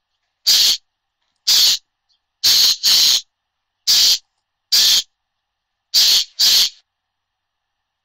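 Blue jay giving harsh jay calls: eight short calls about a second apart, two of them in quick pairs.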